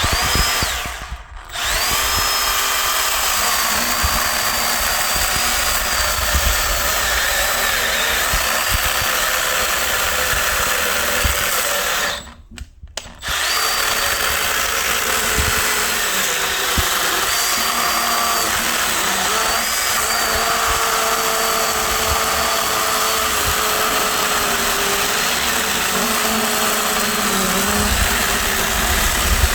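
Milwaukee M12 cordless chainsaw running and cutting through wood, a steady high motor whine whose pitch sags and shifts as the chain bites, with almost no pressure on the saw. It stops twice for about a second, once near the start and once about twelve seconds in.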